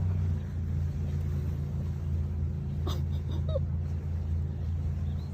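A steady low rumble, with a single sharp click about three seconds in and a brief short rising whine just after it.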